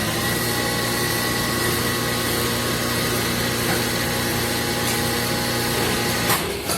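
CNC machine running steadily with a whine made of several steady tones, cutting off suddenly near the end.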